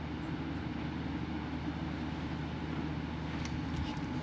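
Steady low mechanical hum, an even drone with several low tones and a faint hiss that does not change.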